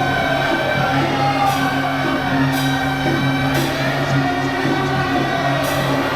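Temple procession music: a sliding melody over a steady held low drone, with sharp crashes about once a second.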